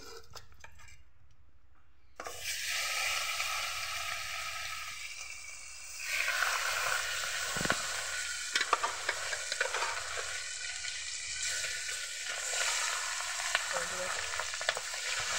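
Salt-and-turmeric-rubbed fish pieces sizzling as they fry in hot mustard oil in a kadai. The sizzle starts about two seconds in, grows louder about six seconds in, and has scattered pops of spattering oil.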